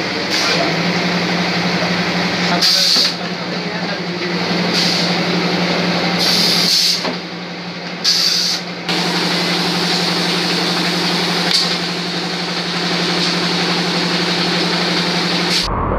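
Plastic bottle moulding machine running: a steady hum from its motor and pump, with several short hisses of air in the first nine seconds.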